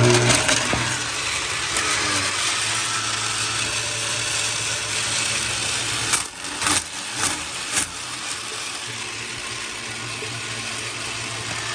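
Breville centrifugal juicer running at full speed and grinding ice cubes, with a steady motor hum under a gritty crunching. Several sharp louder cracks come about six to eight seconds in. The ice is being run through to hone the cutting disc's small blades, which the owner finds dull.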